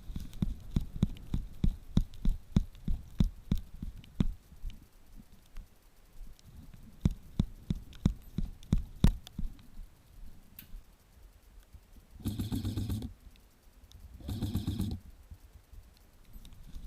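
Footsteps on the forest floor, about two to three steps a second, then near the end two short bursts of rapid fire from an electric airsoft gun, each under a second long and about two seconds apart.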